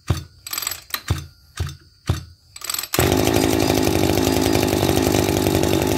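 Maruyama MB260 26cc two-stroke brush cutter being pull-started: a few short strokes of the recoil starter, about two a second, then the engine catches about three seconds in and runs steadily.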